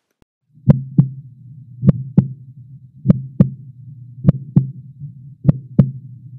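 Heartbeat sound effect: a double thump, like a lub-dub, repeating about every 1.2 seconds over a steady low drone, starting about a second in.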